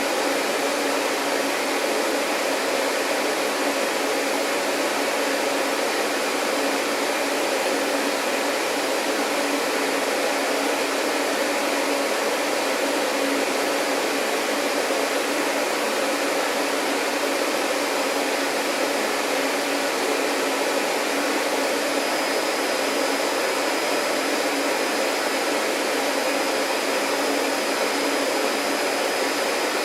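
Vacuum cleaner running steadily, an even rushing noise with a low hum that never changes; a faint high whine joins about two-thirds of the way in.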